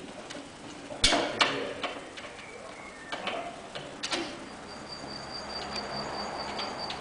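Sharp clicks and knocks from a Segway-mounted wheelchair seat being worked by hand at its frame and lever, three of them clear, about one and four seconds in. From about halfway through a steady high whine with a faint low hum joins.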